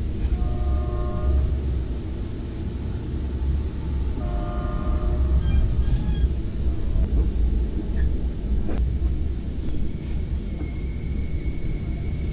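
Commuter train running, a steady low rumble heard from inside a passenger car, with two multi-tone train horn blasts of about a second each, roughly four seconds apart. A sharp knock comes near the middle, and a faint high squeal near the end.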